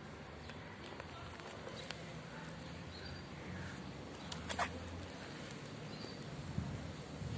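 A calico cat eating wet food from a foil tray: faint chewing and small clicks over a steady low hum, with one brief sharp click about four and a half seconds in.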